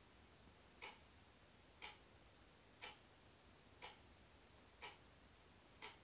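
A clock ticking faintly, one sharp tick a second, over near-silent room tone.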